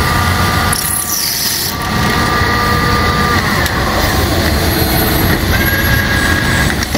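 Metal lathe running steadily as its cutting tool turns brass bar stock, with high squealing tones from the cut that come and go, some sliding down in pitch.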